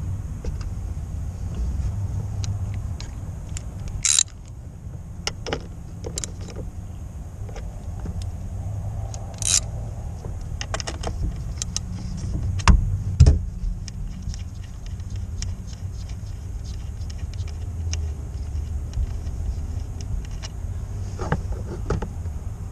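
Metal clinks, jingles and clicks of hand tools and cable hardware being worked on battery and fuse-holder terminals, including a ratchet wrench tightening a terminal nut, with two heavier knocks about halfway through. A steady low rumble runs underneath.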